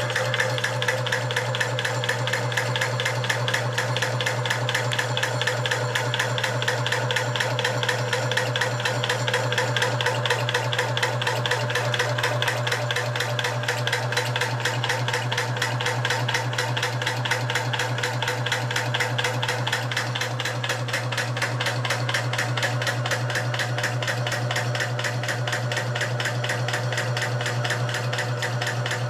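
Homemade belt-driven high-pressure air (HPA) compressor running under load, a steady fast mechanical clatter over a constant hum, as it pumps air up to high pressure.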